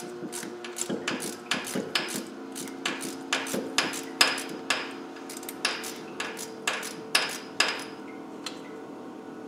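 Socket ratchet clicking, about two sharp clicks a second, as the coolant drain bung on a Land Rover 300Tdi engine block is worked loose to drain coolant; the clicks stop near the end.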